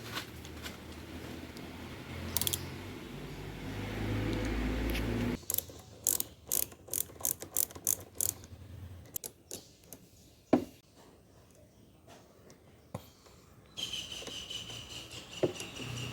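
Hand tools working on a scooter's brake lever and master-cylinder fittings: a low handling rumble, then a run of sharp metallic clicks about two a second, a single loud click, and a steady high whine near the end.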